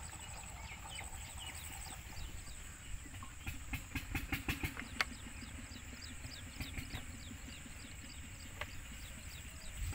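Liquid pouring from a plastic jerrycan into the filler on top of a diesel engine, with a cluster of sharp knocks and glugs about four to five seconds in. Birds chirp with many short falling notes, over a steady high insect buzz.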